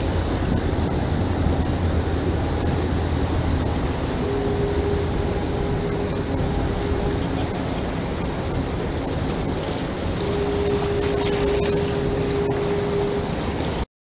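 Wind buffeting the microphone over the churning propeller wash of a passing Great Lakes freighter. A foghorn sounds two long, steady blasts of about three seconds each, one in the middle and one near the end.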